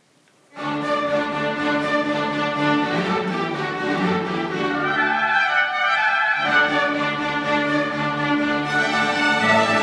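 Baroque orchestra of strings and brass playing sustained chords, starting abruptly about half a second in. The low bass line drops out for about a second midway, then returns.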